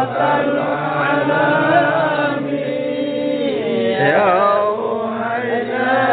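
A group of men chanting Arabic sholawat, devotional praise of the Prophet Muhammad, together in long, drawn-out melodic phrases.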